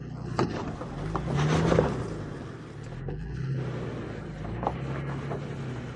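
Off-road 4x4's engine running under load, getting louder for a moment around a second and a half in, with a few sharp knocks.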